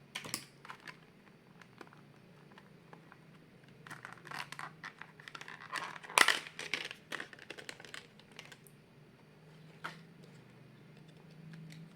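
Hands handling laptop parts and plastic: scattered clicks and crinkling rustles, with the loudest cluster about six seconds in and a single click near ten seconds.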